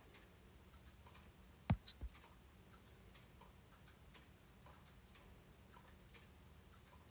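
Digital watch button pressed once: a click, then a single short, high-pitched key-tone beep, and a softer click as the button is released.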